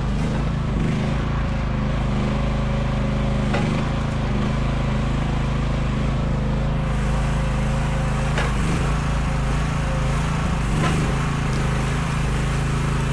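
Chinese mini excavator's engine running steadily under load while it works out tree stumps, with a few sharp knocks along the way and a faint wavering whine.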